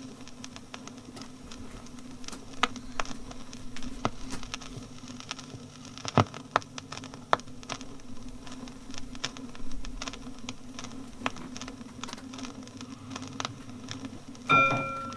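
Motor bus running with a steady low engine hum, scattered sharp clicks and knocks over it, then a single bell ding near the end: the conductor's bell signal to the driver.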